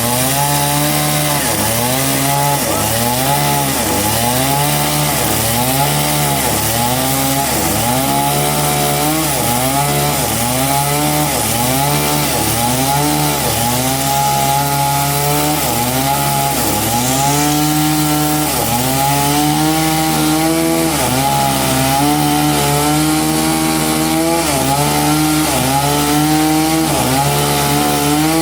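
Engine-driven saw cutting a large trembesi log. The engine runs loud under load, its pitch dipping and recovering about once a second as the blade bites into the wood, with steady cutting noise underneath.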